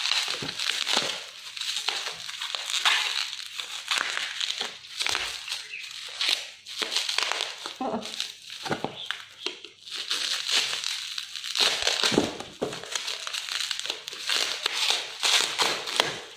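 Thin plastic packaging crinkled and crushed by hand as it is unwrapped, an irregular run of crackling rustles.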